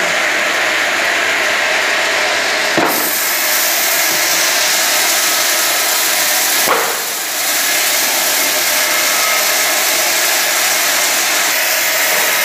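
Multi-blade rip saw running and cutting slab wood fed in on its belt conveyor: a loud, steady sawing noise, with a knock about three seconds in and another near seven seconds.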